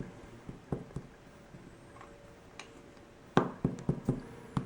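Sharp little metallic clicks and taps of a pin-tumbler lock's parts being handled while it is taken apart: a few scattered ones, then a quick run of clicks about three and a half seconds in.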